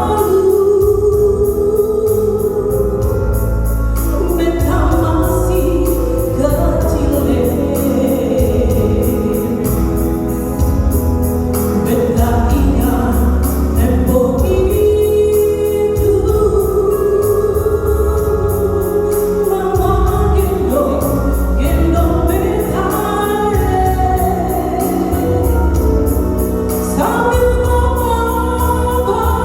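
A woman singing with long held notes over an instrumental backing with a steady bass.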